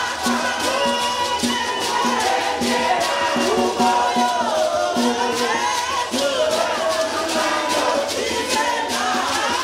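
A group of women singing a Shona church hymn together, shaking hand-held rattles in a steady rhythm of several shakes a second.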